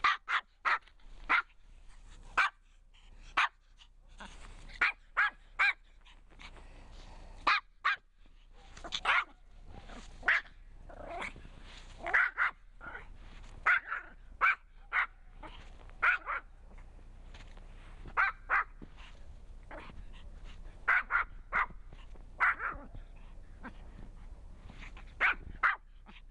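A small dog barking over and over in short, sharp barks, often two or three in quick succession with brief pauses between.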